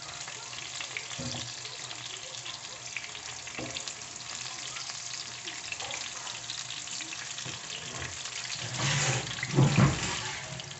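Breaded chicken breast cutlets sizzling and crackling steadily in hot cooking oil in a nonstick frying pan, with a slotted spatula moving them. A few louder knocks come about nine to ten seconds in.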